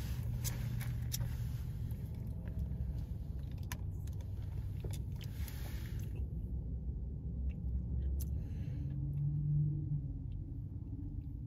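Steady low rumble of a car cabin with the engine idling, with small clicks and rustles from handling and sipping an iced coffee in a plastic cup with a straw.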